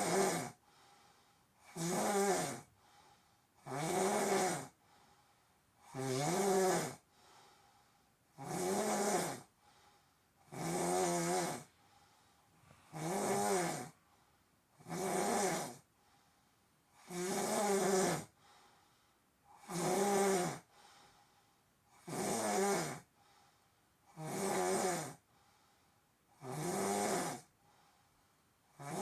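Regular snoring: about thirteen snores, one roughly every two seconds, each a pitched sound that rises and then falls, with quiet breaths in between.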